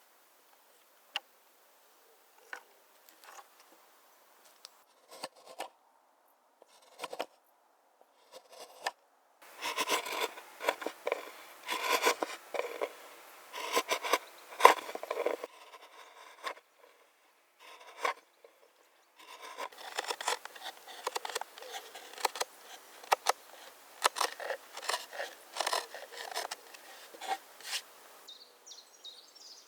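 A knife scraping and shaving in quick, irregular strokes, in two long spells with scattered ticks before them.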